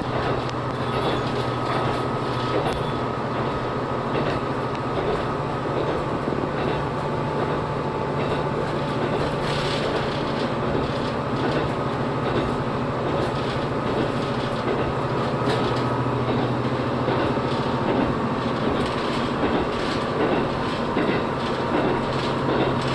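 Diesel railcar running along the line, heard from inside the car: a steady low engine hum over a constant rumble of wheels on rails, with occasional clicks from the track.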